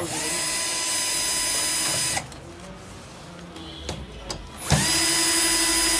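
Cordless drill/driver turning a screw in a sheet-metal plate: two runs of about two seconds each with a steady whine, the second louder, and a few light knocks in between.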